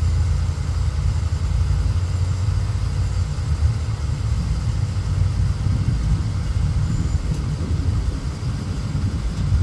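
Four-engined jet airliner at cruise altitude, heard from the ground as a steady low rumble.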